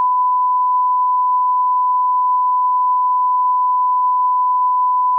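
A steady 1 kHz line-up tone: a pure single-pitch test tone played with colour bars at the head of a broadcast tape, as a level reference for alignment.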